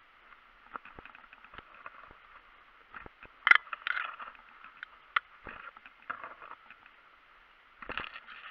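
Dry tall grass rustling and crackling as a person pushes through it low to the ground, with scattered sharp clicks and knocks of gear brushing the stems. The loudest bursts come about three and a half seconds in and again near the end.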